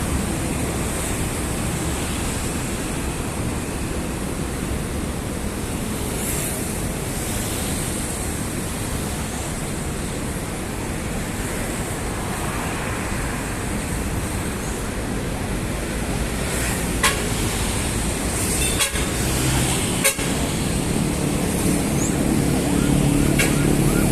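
Steady city road traffic noise from passing vehicles, with a few sharp clicks or knocks in the last few seconds and an engine drawing nearer and louder near the end.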